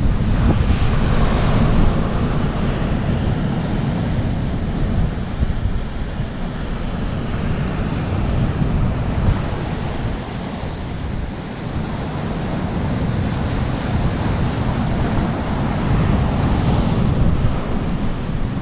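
Strong wind buffeting the microphone with a low rumble over the steady wash of surf breaking on the beach.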